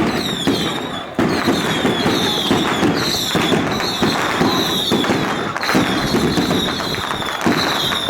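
A long string of firecrackers going off in a dense, continuous crackle, with a high falling squeal repeating about once a second over it.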